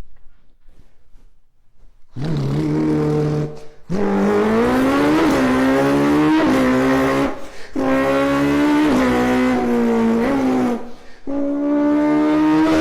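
A person imitating a Chevrolet Camaro V8 with his mouth. The engine note climbs and drops back in steps like gear changes through acceleration, in three long runs broken by short pauses for breath.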